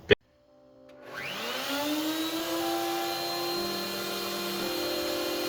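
A click, then an electric motor switching on and winding up over about a second and a half into a steady, even whine.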